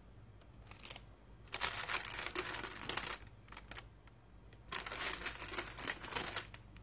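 Parchment baking paper crinkling and the crust of a freshly baked loaf crackling as the torn loaf is pulled apart and handled: two bursts of dense crackling, one about a second and a half in and one about five seconds in.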